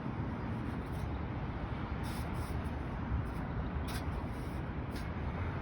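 Steady background noise with no distinct tone, broken by a few faint clicks about two, four and five seconds in.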